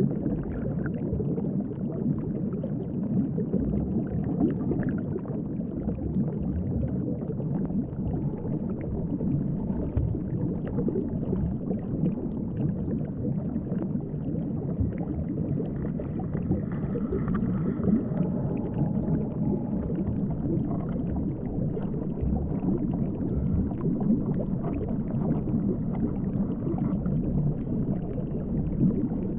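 Underwater sound picked up by a submerged GoPro: a steady, muffled rumble of moving water with no distinct events.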